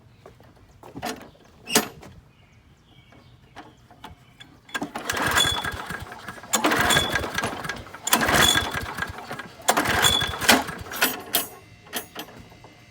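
Recoil starter of a Craftsman 6.75 lawnmower pulled four times, each pull about a second of the cord whirring out as the engine turns over without catching: a mower that will not start. A couple of sharp clicks come before the first pull.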